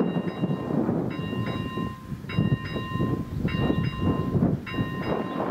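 Electronic level-crossing bell (ZV-01) chiming about every 1.2 seconds, five chimes, over loud low background noise.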